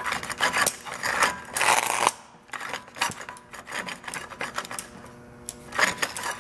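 Power Fist 5-inch angle grinder plugged in with its motor shorting out, crackling and sputtering in irregular bursts over a faint electrical hum; the bursts ease off midway and pick up again near the end. The sound of a burning, arcing motor winding.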